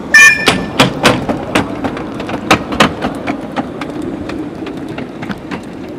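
Miniature steam locomotive Synolda and its train rolling slowly past, wheels clacking irregularly over rail joints and points over a steady low rumble. A brief high-pitched squeal comes right at the start.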